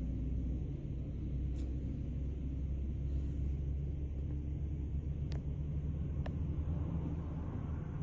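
Low, steady rumble of a convoy of trucks and military vehicles driving along a road, with a few faint clicks.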